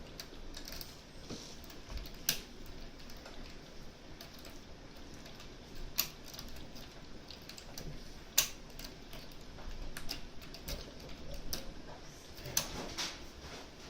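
Small metallic clicks and ticks of picking tools working inside a Mosler M5700 safe deposit box lock, with four sharper clicks several seconds apart.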